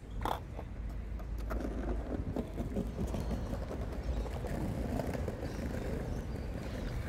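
Outdoor city-park ambience: a steady low rumble of traffic and wind on the microphone, with scattered light knocks of footsteps on stone paving.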